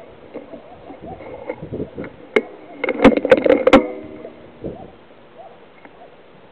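A quick cluster of sharp clicks and knocks from the scoped rifle being handled, about two and a half to four seconds in, over a faint background.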